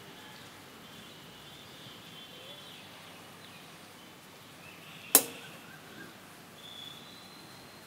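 Low background hiss with faint high chirps, broken by a single sharp click about five seconds in.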